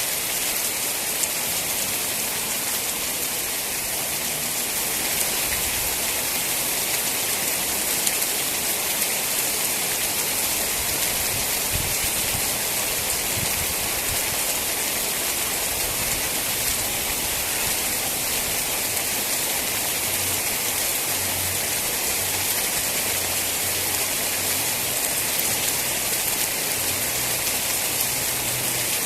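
Steady rain falling, an even hiss of many drops with occasional individual drop ticks.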